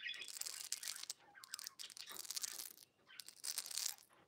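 Gold-tone rhinestone chain necklace jingling and clinking as it is dangled and handled, in a few short spells of light metallic rattle.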